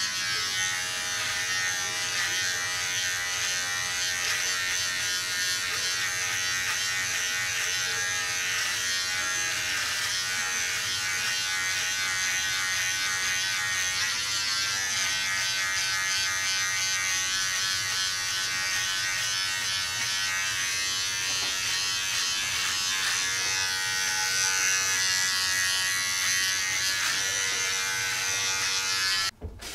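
Braun All-in-One Trimmer 3 (MGK3220) cordless hair trimmer running with a steady buzz as it is worked over a closely clipped scalp, its pitch shifting slightly as it cuts. The buzz stops suddenly just before the end.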